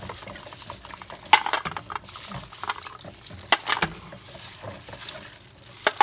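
Oyster shells clinking and knocking on a plate as they are set out, a handful of sharp clicks over a faint steady hiss.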